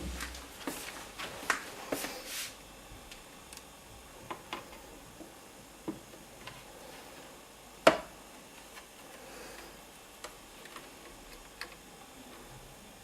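Scattered light clicks and taps of small tools and parts being handled while working on an SACD player's internals, with one sharper, louder click about eight seconds in.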